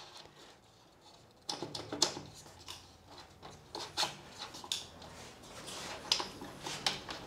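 Metal rip fence of a Bosch GTS 254 table saw being fitted onto the table's rail and pushed into place. Scattered light clicks, knocks and short scrapes of metal on metal begin about a second and a half in.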